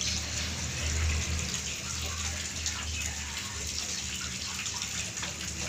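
Steady rush of running water, like a tap or hose running, with a low hum underneath and a few faint light taps.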